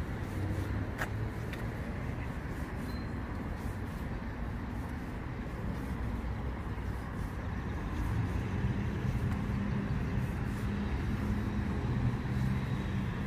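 Low, steady rumble of city road traffic. A vehicle's engine hum grows a little louder from about eight seconds in.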